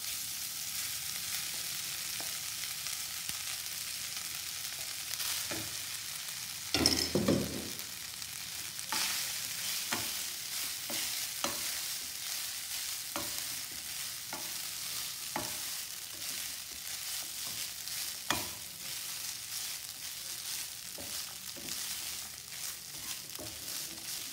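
Rice sizzling as it goes into hot oil and spices in a non-stick kadhai, while a spatula stirs it, with repeated scrapes and taps against the pan. A louder knock comes about seven seconds in.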